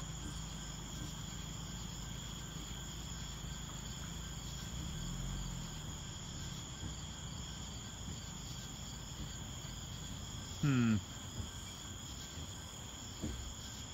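Crickets chirping steadily in a high, even drone, over a low hum. About eleven seconds in, a brief falling pitched sound, like a voice.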